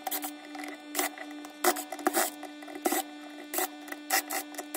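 Cordless drill-driver motor whining steadily as it backs out Phillips screws from a plastic tool housing, with frequent irregular sharp clicks.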